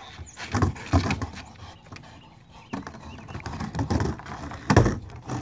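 Skateboard rolling and knocking on a plywood pump-track floor as a dog rides and pushes it: irregular knocks and clatters over a low wheel rumble, the loudest near the end.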